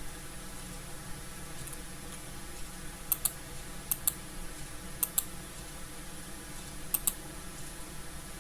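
Computer input clicks: four quick pairs of sharp clicks, each pair a split second apart, spread over the middle of the stretch, over a steady faint background hum.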